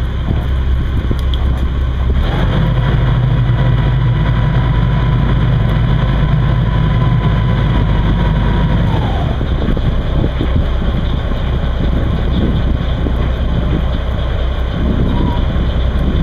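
Beam trawler's engine running steadily. About two seconds in, a steady higher whine joins with a heavier hum; it drops away and stops about nine seconds in.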